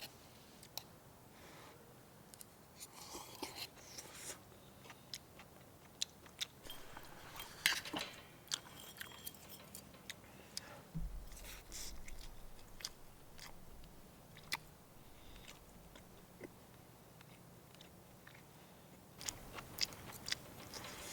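A person eating: faint chewing and biting, with scattered short crunches and light clicks.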